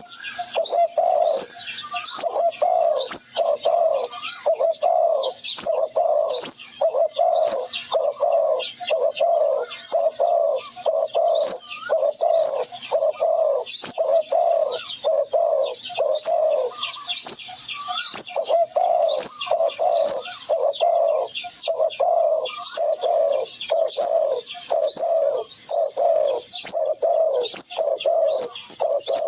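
Birds calling: a low note repeated about twice a second, with quick high chirps over it; the low notes pause briefly a little past halfway through.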